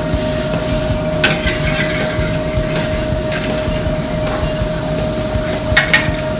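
Steady rumble and hum of a commercial kitchen exhaust hood over a gas range, with sharp metal clinks of tongs against an aluminium skillet about a second in and twice near the end as the stir-fry is stirred.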